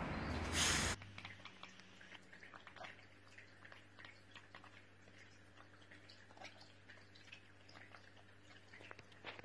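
A loud rush of noise cuts off suddenly about a second in; then a cat chattering quietly, a string of faint irregular clicks and short little chirps, over a low steady hum.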